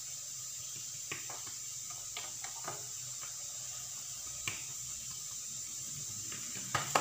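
Hand pressing and spreading a ball of msemen dough flat on a granite countertop: a few faint soft taps and slaps over a steady high hiss.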